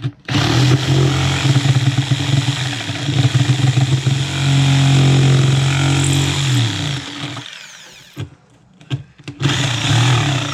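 Hand-held electric power tool running at speed, with a steady hum. It winds down about seven seconds in and starts up again near the end.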